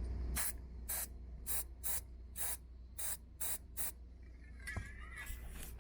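Liquid Wrench aerosol can sprayed in about eight short hissing bursts, then one longer burst near the end, to lubricate the squeaking door-check roller on a Ram 1500 truck door.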